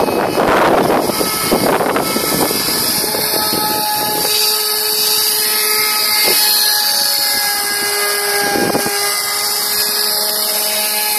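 Homemade RC airboat's motor and air propeller running at speed with a steady high whine, dropping in pitch at the very end as the throttle eases.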